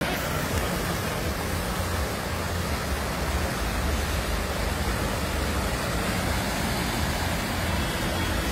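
Fast, muddy floodwater rushing and churning through a stream channel, a steady, unbroken rush.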